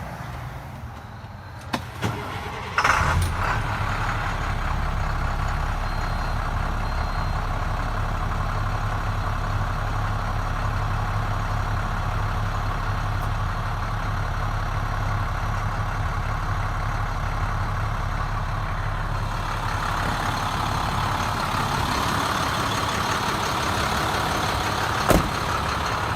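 International CXT's DT466 inline-six diesel starting about three seconds in, then idling steadily with a deep low hum. A sharp click sounds near the end.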